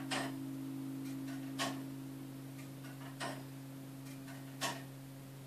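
1895 Gillett & Johnston turret clock movement ticking, one sharp escapement tick about every one and a half seconds. A low hum fades slowly underneath: the tenor bell dying away after striking the hour.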